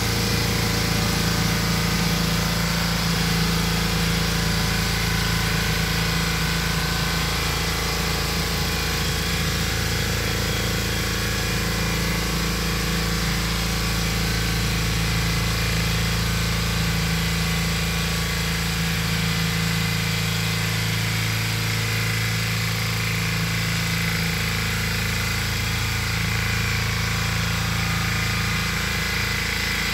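Valpadana walk-behind tiller's 8 hp Lombardini engine running steadily as it tills garden soil.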